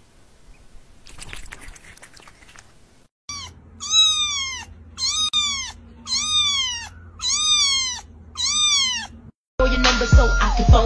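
A cat meowing over and over, about one call a second, each meow rising and then falling in pitch.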